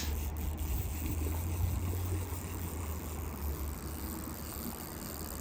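Wind rumbling steadily on the microphone, with a faint outdoor hiss above it.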